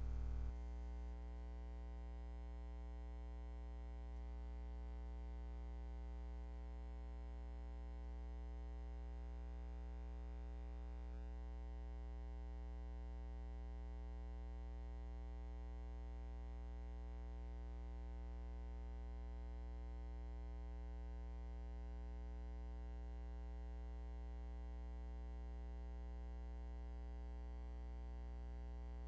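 Steady low electrical mains hum with no other sound, a little quieter after the first second.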